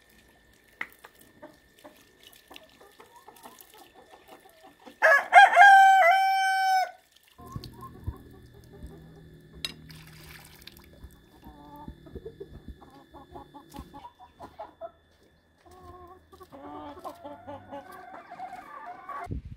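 A rooster crows once, a single call of about two seconds some five seconds in, the loudest sound here. Then water runs from an outdoor tap and splashes on the ground, and hens cluck near the end.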